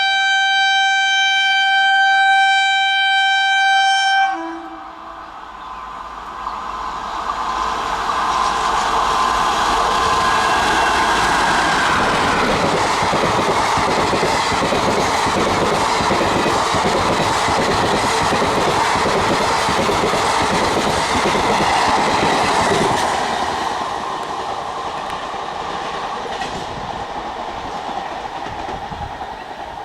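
Train horn blowing one long steady note, cutting off about four seconds in. Then a train passes at speed, its wheels clicking rhythmically over the rail joints, fading away after about twenty-three seconds.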